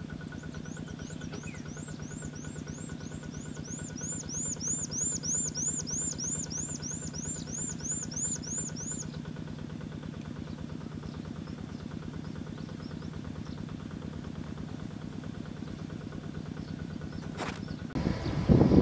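A small engine running steadily with a fast, even pulse. For the first half, a bird repeats a high, rising-and-falling call about two or three times a second.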